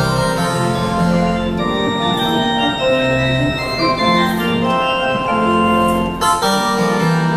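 Church pipe organ playing sustained chords over low bass notes, moving from chord to chord, with a brief break in the sound about six seconds in before the next chord.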